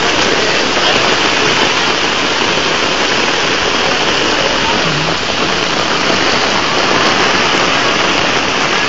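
Swollen floodwater river rushing by in a steady, unbroken torrent, its level raised to the bridge deck by typhoon rains.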